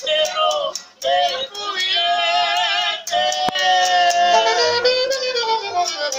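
Live norteño band music from saxophone, accordion, guitar and upright bass, with a wavering lead melody. There is a brief pause in the melody about a second in.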